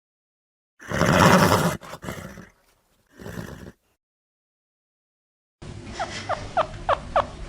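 A horse calling: one loud, breathy, noisy burst about a second in, followed by two shorter, weaker ones. Near the end a fast run of short, squeaky falling chirps begins, about four a second.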